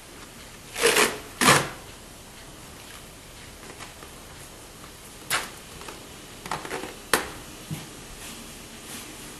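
Self-adhesive vet tape being pulled off the roll and wrapped around a horse's leg: two loud rips about a second in, then a few shorter, softer ones later on.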